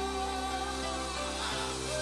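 Live band music of slow held chords, moving to a new chord near the end.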